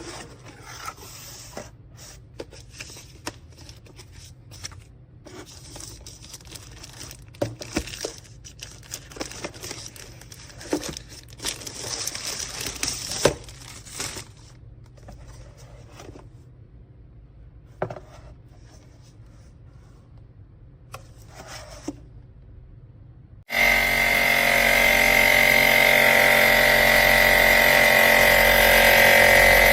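Clicks and rustling of handling, then about three-quarters of the way through the PIRAIL jump starter's built-in air compressor switches on suddenly and runs steadily with a high whine.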